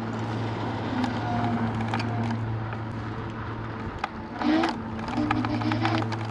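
Dualtron X2 electric scooter riding over rough, bumpy dirt and grass: a steady low hum runs under rattles and knocks from the bumps. About four and a half seconds in, a higher motor whine rises as the scooter speeds up.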